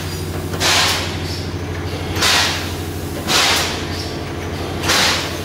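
Three-cavity automatic PET bottle blow moulding machine running: a steady hum under four sharp hisses of compressed air, one every second or so, as the blowing cycle repeats.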